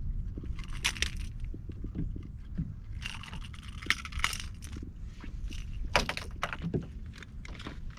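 Irregular bursts of rattling and clinking as a hooked redfish is landed and handled in the boat, with a topwater lure's metal treble hooks jangling. The bursts come about a second in, again around three to four seconds, and once more around six seconds.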